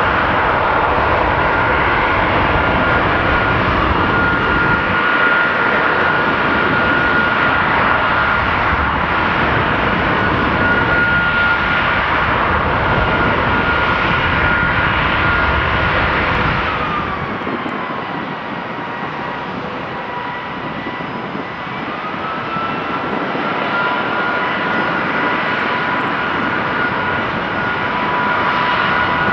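Boeing 757-200 freighter's jet engine running at high power during a ground engine test, a loud rush with a high whine. A little past halfway the whine drops and the sound eases as the engine spools down, then a few seconds later the whine rises again as it spools back up.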